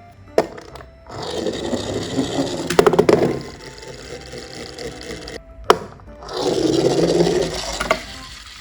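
Toy cars rolling down a plastic ramp: two stretches of rattling rolling noise, each about two seconds long, with sharp clacks as they knock against the track and each other.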